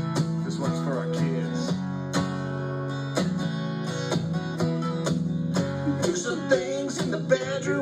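Acoustic guitar strummed, a chord struck about once a second and left to ring, playing the introduction before the singing comes in.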